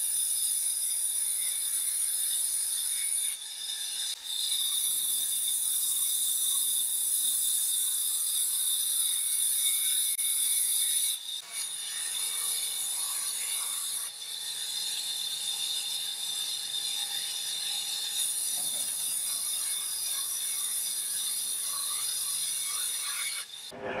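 Large band saw ripping planks of timber: a steady, high-pitched hiss of the blade cutting through wood, which dips briefly a few times. It cuts off abruptly right at the end.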